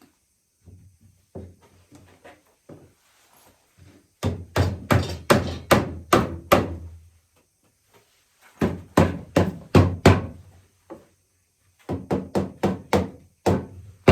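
Hammer blows knocking a walnut rocking-chair arm down onto its joints: a few light taps, then three runs of quick, sharp strikes, about three a second.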